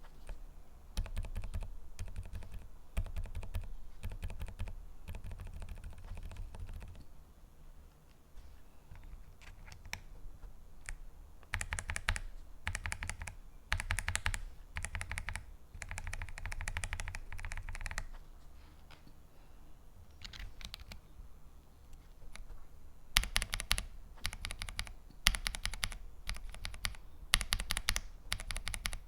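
Typing on a mechanical keyboard fitted with Kailh MX-style linear switches, in bursts of rapid keystrokes with short pauses between them. The strikes get louder and sharper toward the end.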